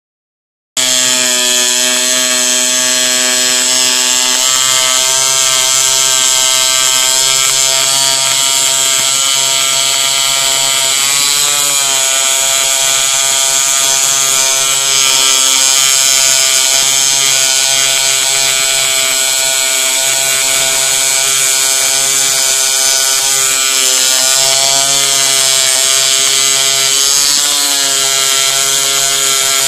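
Reciprocating needle foam cutter, its needle sliding through a copper welding-tip guide, running on a small CNC machine while it cuts foam board: a loud, steady mechanical buzz with a high whine. It cuts in abruptly under a second in, and its pitch wavers briefly twice as the machine moves.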